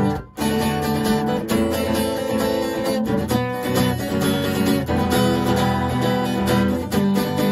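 Acoustic guitar strumming chords, with a short break just after the start before the strumming carries on.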